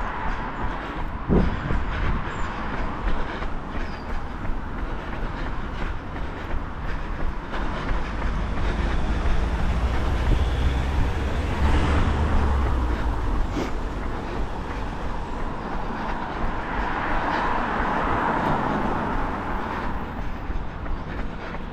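Traffic on a wet city street: a steady low rumble with vehicles swelling past, the heaviest rumble about halfway through and a second, higher swell near the end.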